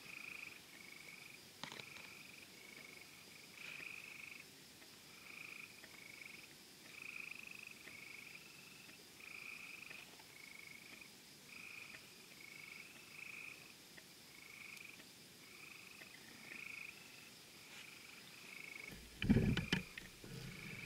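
Frogs calling in repeated short notes at one pitch, one or two a second, over a faint steady high hum. About two seconds before the end, a quick cluster of loud sharp firework bangs.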